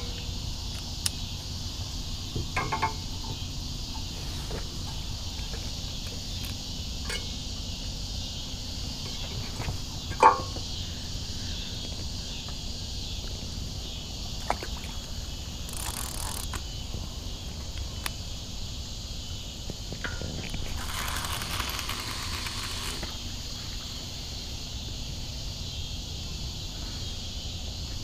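Steady chorus of insects over a low rumble, broken by scattered clicks and knocks from a fishing rod and reel being handled on a dock. The loudest knock comes about ten seconds in, and a louder rush of noise lasts about two seconds a little past the middle.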